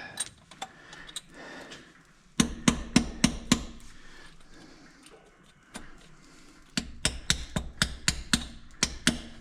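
Hand ratchet wrench clicking as a bolt is worked on the engine: two runs of quick clicks, about four a second, the second run longer, near the end.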